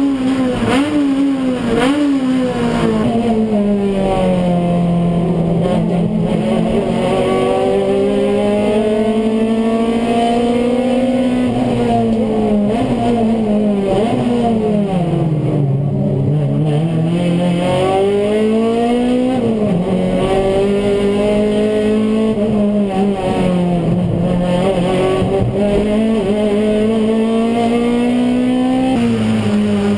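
Touring car engine heard from inside the cockpit at race pace, its note rising and falling with throttle and gear changes, dropping lowest about halfway through before climbing again.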